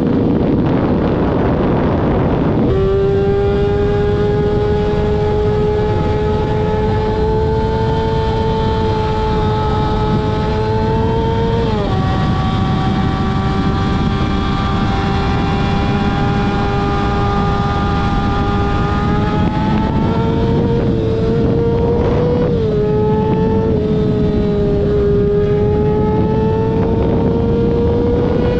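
Rushing wind noise on the microphone for the first few seconds, then a high-revving vehicle engine with a steady, strongly pitched note. The pitch drops abruptly twice, about halfway through and again later, as at gear changes, and climbs slowly after each drop.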